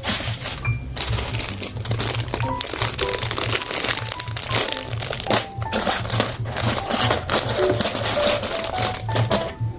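Paper and tape crinkling and rustling in repeated short crackles as they are handled and pressed, under background music with a bouncy melody and a steady beat.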